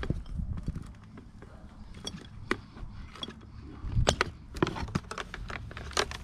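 Scattered sharp clicks and knocks, a few louder ones about four seconds in and near the end, over a low steady rumble.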